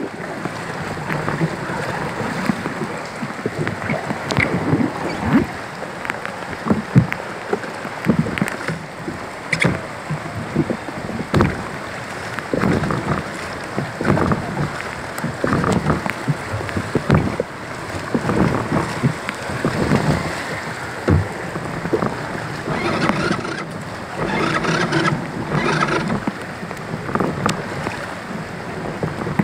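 Heavy tropical-storm rain pouring down on a flooded street, with floodwater sloshing and splashing around wading feet.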